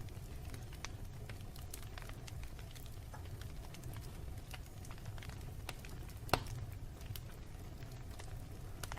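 Wood fire burning in a fireplace: a steady low rumble of flames with scattered crackles, and one louder pop about six and a half seconds in.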